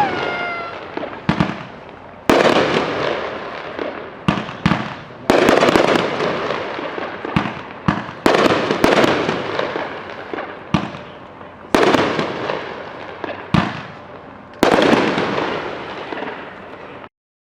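A 500-gram 12-shot firework cake firing its shells, about a dozen sharp bursts at uneven intervals. Each burst is followed by a fading hiss of willow-like brocade stars. The sound cuts off abruptly near the end.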